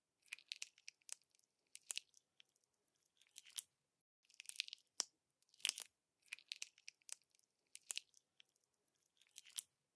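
Slime being pressed and squeezed by hand, giving off clusters of crackles and sharp popping clicks about once a second as trapped air pops.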